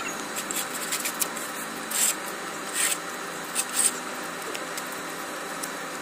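A few short scraping strokes of a tool on a hardened concrete (PCC) footing pad as a marking line is scratched in, over steady outdoor background noise.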